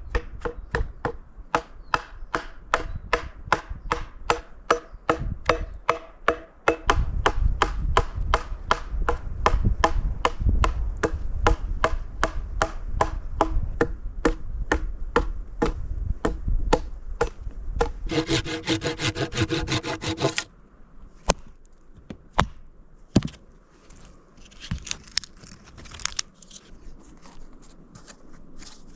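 Hand saw cutting through wood in steady back-and-forth strokes, about three a second. About eighteen seconds in there is a harsher two-second run, and after it the sawing gives way to scattered knocks.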